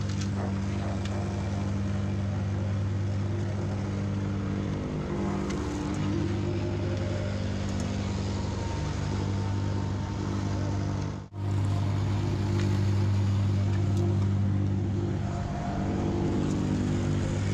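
Diesel engine of a compact track loader running steadily under work, a constant low drone that holds one pitch. It drops out for an instant about eleven seconds in, then carries on slightly louder.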